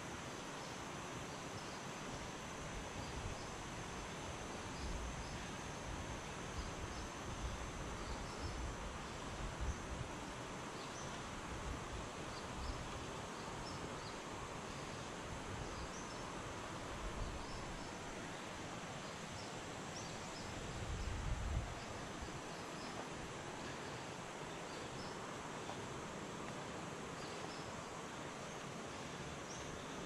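Tropical rainforest ambience: a steady even hiss with faint high insect chirps scattered through it. A few dull low thumps come and go, the loudest a little after twenty seconds.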